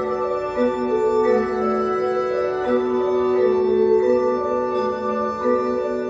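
Music of sustained organ-like chords, with held notes and a melody that moves every half second or so.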